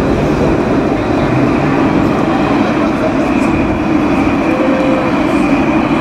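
Electric street tram running past on its rails: a steady rumbling, rolling noise with a faint high whine over it.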